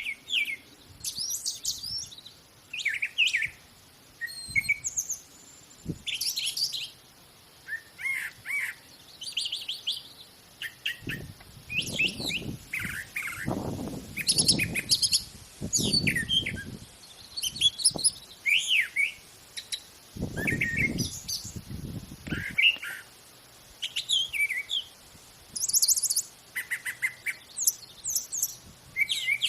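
Wild songbirds chirping and calling in many short, quick phrases and trills, with several birds overlapping. A low rumble comes and goes twice in the middle.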